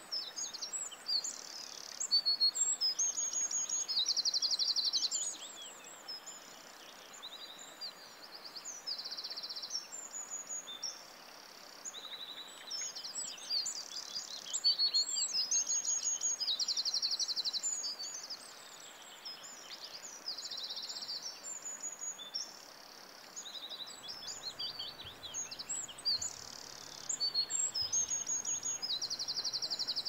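A songbird singing high, quick chirped phrases. Each ends in a rapid buzzy trill, and the song repeats every two to four seconds over a faint steady background hiss.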